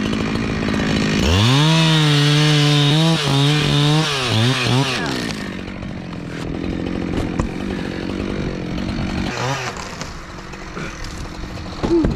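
Gas chainsaw throttled up about a second in and held at high revs, its pitch wavering and dipping as it cuts, then falling back to a low idle around five seconds in. There is a brief rev near the end.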